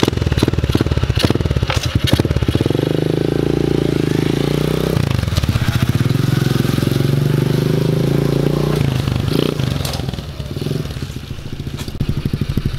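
Polini 110 pit bike's small engine puttering, then revving up as it pulls away: the pitch climbs, dips briefly about five seconds in, and climbs again. The sound weakens after about nine seconds as the bike rides off.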